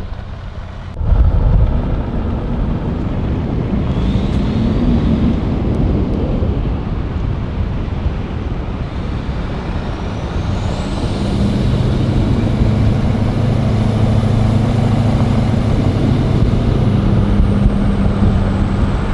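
Pickup truck driving along a rural road, heard from inside the cab: a steady rush of road and wind noise. From about halfway an even low engine drone joins it, with a high whine that rises and then holds.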